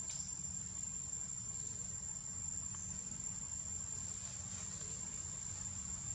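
Insects trilling in one steady high-pitched tone, with a low rumble underneath.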